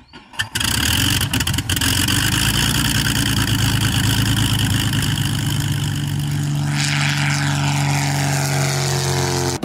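Small propeller plane's piston engine running loud and steady, then sweeping past with its pitch dropping about two-thirds of the way through, cut off suddenly at the end.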